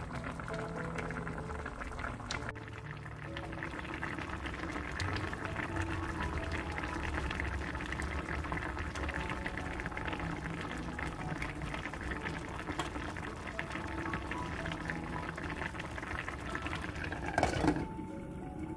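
Pot of spicy tuna-and-tofu stew bubbling at a boil, under soft background music. Near the end a glass pot lid clinks down onto the stainless pot once, and the bubbling goes muffled.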